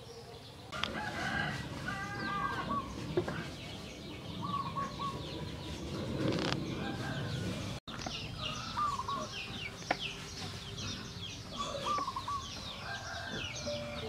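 Chickens clucking and a rooster crowing about a second in, over the steady chirping of small birds. There is a brief dropout about eight seconds in and a single sharp tap about ten seconds in.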